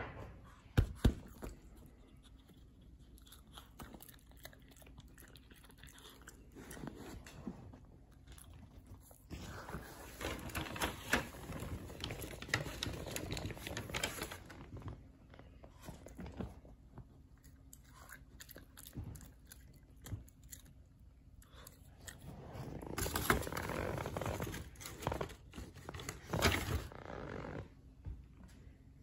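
Shih Tzu chewing and crunching treats, in two long bouts, with a few sharp clicks about a second in.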